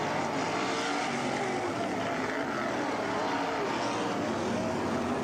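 Several winged sprint cars racing on a dirt oval, their V8 engines running hard together, with pitches wandering up and down as the cars go around.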